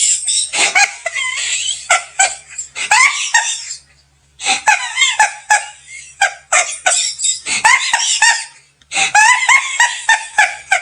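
Turkey gobbling: quick, rattling, warbling calls repeated over and over in three runs, broken by short pauses about four seconds in and again near nine seconds.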